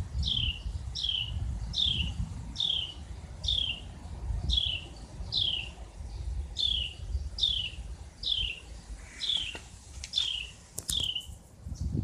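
A songbird repeating a clear, falling whistled note about fourteen times, a little more than once a second, over a low rumble.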